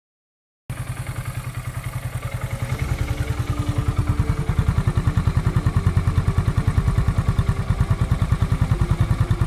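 A small commuter motorcycle's engine running as it is ridden, a rapid, even putter of exhaust beats. It starts abruptly just under a second in and grows louder about three seconds in.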